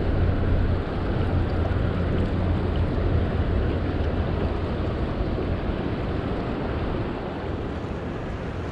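Shallow mountain creek rushing steadily over rocks, with a low rumble underneath that is heaviest in the first few seconds.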